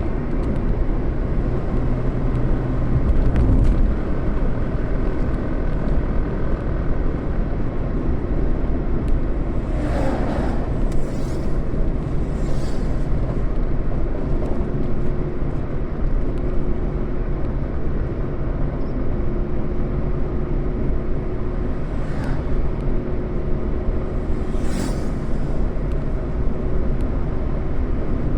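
Road vehicle on the move: steady engine and road rumble, with a few brief hissing swells of passing traffic or wind.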